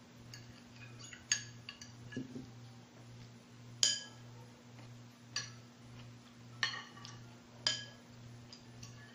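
Metal forks and spoons clinking and scraping against ceramic dinner plates as people eat: short, sharp, ringing clinks every second or so, the loudest about four seconds in, over a faint low hum.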